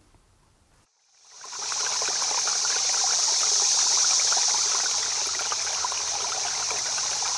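Running water of a stream: a steady, bright rushing that fades in after about a second of near silence.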